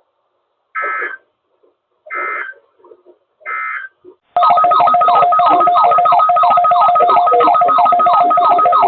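Emergency Alert System SAME header: three short bursts of digital data, each well under a second, about a second apart. About four and a half seconds in, a loud continuous electronic alert tone starts, two steady pitches with a fast repeating warble, marking the start of the weekly test alert.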